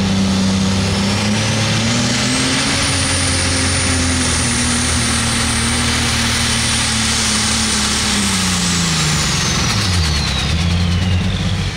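Light super stock pulling tractor running at full power under load, a high turbo whine held steady over the engine. About eight seconds in, the engine and the whine wind down together as the tractor backs off.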